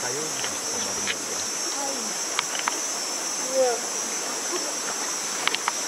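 A steady, high-pitched drone of jungle insects over the even rush of a stream, with a few sharp clicks scattered through it.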